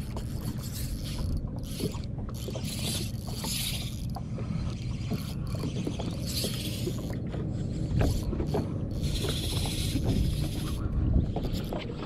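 Megabass spinning reel being cranked, its gears giving a run of small quick clicks.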